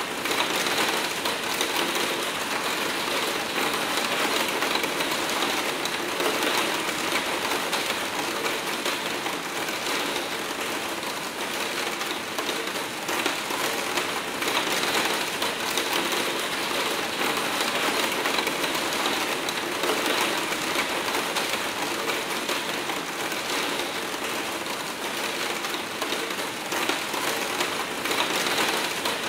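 Hard rain pattering on a skylight window, a steady, dense patter of countless drops striking the pane without let-up.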